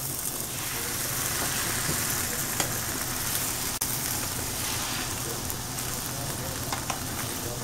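Potatoes deep-frying in hot oil in a cast-iron Dutch oven, very nearly done: a steady sizzle, with a few light clicks from a spatula turning eggs in a skillet.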